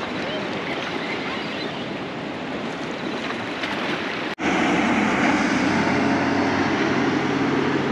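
Flowing water and light surf. After a cut about four and a half seconds in, it grows louder and a small motorboat's engine runs steadily as the boat passes.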